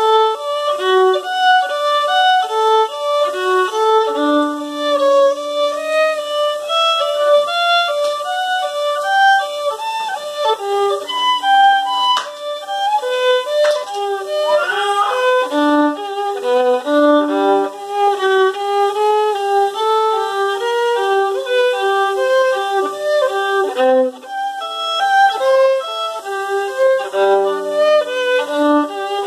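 Solo violin played with the bow: a lively melody of short separate notes with a few longer held ones, and a brief sliding note near the middle.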